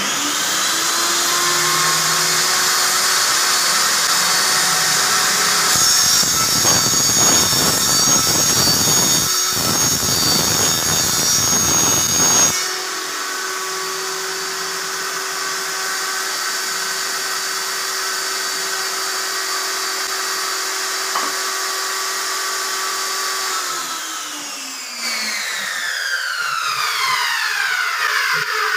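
Table saw running. About six seconds in the blade cuts through a sheet of board for about seven seconds, and then it runs free with a steady whine. Near the end the saw is switched off and the whine falls in pitch as the blade spins down.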